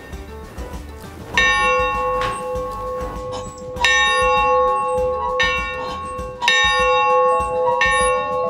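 Large rooftop school bell rung by pulling its rope: about a second and a half in the clapper begins striking as the bell swings, six strokes in all, alternately louder and softer, each leaving a long steady ring.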